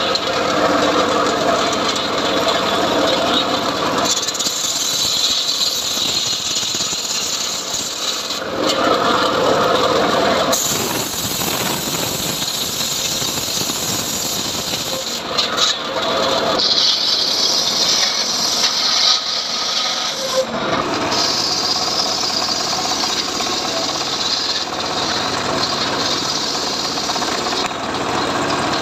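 Home-built engine-driven saw (srekel) slicing johar wood: a steady machine note alternates with a harsher hiss during each cut, about four cuts in a row.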